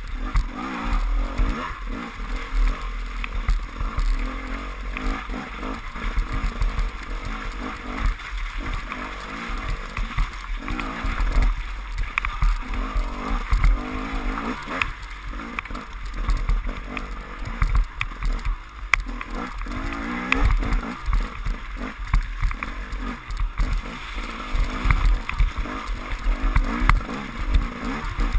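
KTM enduro motorcycle engine running hard and revving up and down as it rides a rutted, muddy trail, with frequent knocks and rattles from the bike over the ruts and wind rumble on the onboard microphone.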